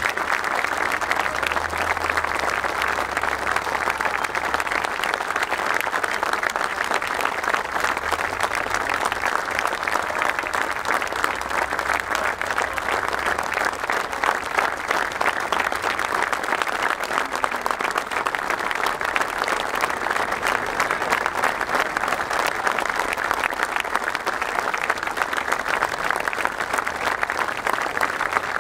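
Large crowd applauding steadily, a dense unbroken clapping that holds at the same level throughout.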